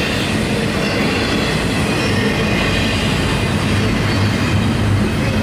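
Double-stack intermodal train's container-laden well cars rolling past, a steady, loud sound of steel wheels running on the rails.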